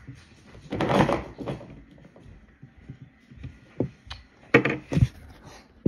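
Handling noise: a short rustle about a second in, then several sharp taps and knocks of small objects on a hard surface in the last two seconds.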